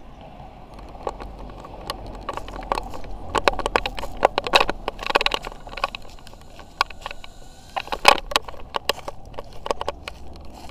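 Footsteps crunching on dry leaf litter, a dense run of crackles and crunches, with a faint thin whine from the tiny quadcopter's motors in the middle.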